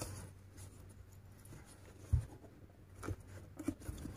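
Faint rustling and scratching of a crochet hook pulling thick Egyptian macramé cord through stitches, with a short low thump about two seconds in.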